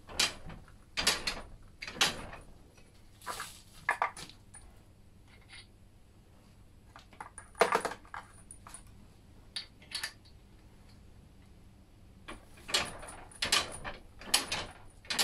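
Scattered metallic clinks and clanks of a steel workpiece and tooling being handled and set in a hand-operated fly press to stamp a touch mark, with the loudest clank about halfway through.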